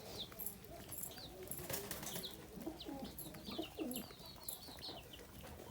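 A flock of feeding birds calling: many short, high chirps over softer, lower calls, with a few clicks.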